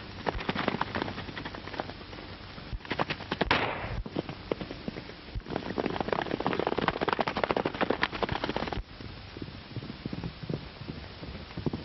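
Horses galloping: a fast, dense clatter of hoofbeats, loudest in the middle and dropping back near the end.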